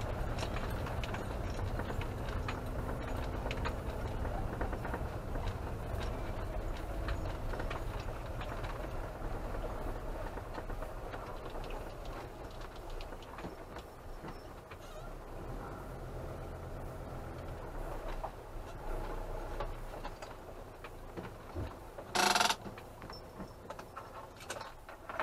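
Camper van's engine running at low speed, heard from inside the cab as it drives along a gravel track, with many small clicks and rattles from the gravel and loose fittings. A brief loud burst of noise breaks in about 22 seconds in.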